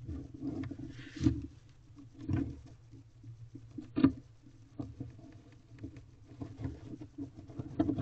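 Female barn owl shuffling and settling onto her eggs in a nest box. Her feet scratch and rustle the wood-shavings bedding, with irregular short knocks, the sharpest about halfway through.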